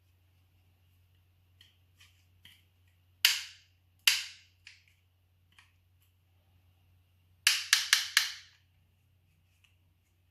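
Sharp, dry clicks and snaps of hard parts: a few light ones, two loud ones about a second apart, then a quick run of four loud snaps near the end, over a low steady hum.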